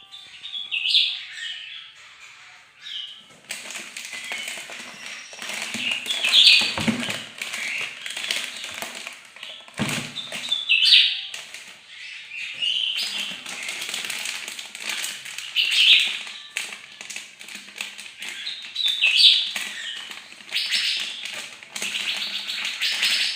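A kept songbird in full song, singing loud, rapid chattering phrases that recur every two to five seconds, with many small clicks and taps between them.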